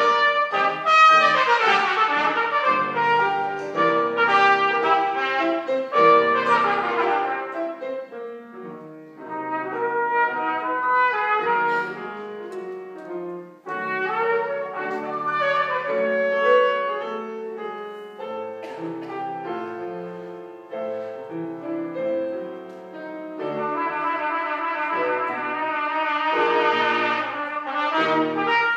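Trumpet playing a melody with grand piano accompaniment, in phrases that swell and ease off.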